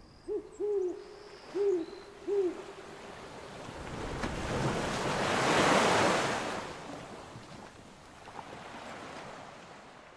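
An owl hooting about four times in the first couple of seconds, then an ocean wave surging up, peaking midway and washing away.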